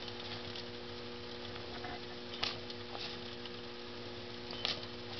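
Faint sizzling of water heating in a homemade spray-can steam boiler over a Sterno flame, under a steady low hum, with a few sharp ticks about halfway through and near the end.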